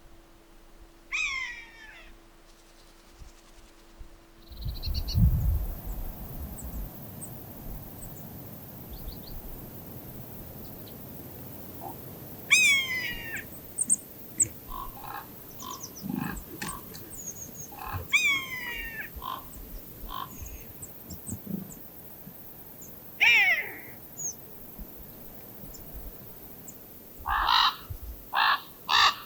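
Wild birds calling outdoors: several short, steeply falling calls spaced seconds apart, then a quick run of crow caws near the end.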